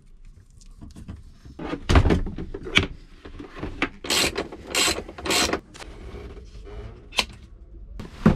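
Irregular handling noise from work on electrical gear: several sharp knocks and clicks, with a cluster of short scraping rattles in the middle.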